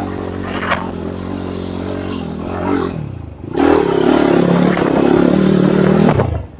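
Enduro dirt bike engine running at steady revs. About three seconds in it dips, then runs louder at higher revs, and it cuts off abruptly near the end.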